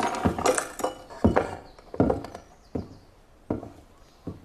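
A burst of clinking and knocking, then single footsteps on wooden boards, evenly spaced and fading as the walker moves away.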